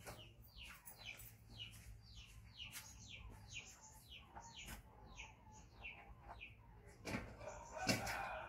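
Bird chirping: a run of short, falling chirps, about three a second, then a louder rustle near the end.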